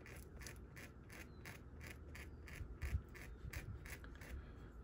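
A knife blade lightly scoring the sticky adhesive film of a diamond painting canvas, in faint, quick scratching strokes about three a second, cutting slits so trapped air under the glue can escape.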